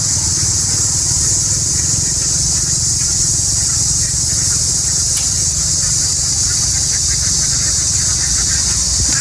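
An engine running steadily at an even speed, with a fine fast pulse low down and a steady high hiss over it.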